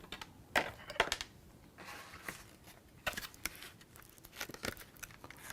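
Plastic packaging of RAM modules crinkling and crackling as it is handled and opened, with several sharp clicks and snaps.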